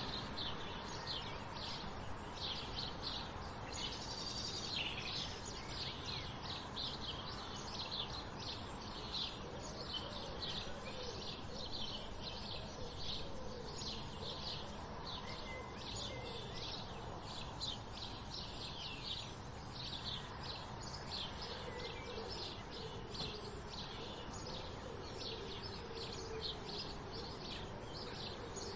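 Sparrows chirping at dawn: a dense, continuous run of short, high chirps, several a second, over a steady background hiss. A lower, wavering call comes and goes underneath in places.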